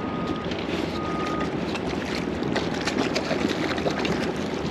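Noise on a fishing boat's deck: wind and water with scattered clicks and knocks. An electronic beep sounds twice in the first second and a half, each about half a second long.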